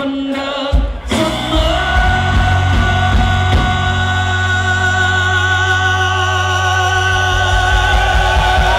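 Live Thai pop-rock song: a man holds one long sung note with vibrato into a microphone over a live band with drums and electric guitar. After a short break in the first second, the band comes back in fully.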